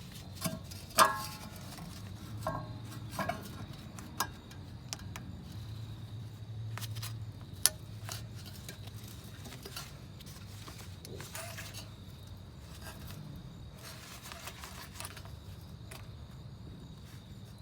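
Metal tools and car parts clinking and tapping now and then as the new wheel hub assembly is worked into place. A few sharp clinks with a brief metallic ring come in the first few seconds, the loudest about a second in, and one more sharp click comes around the middle.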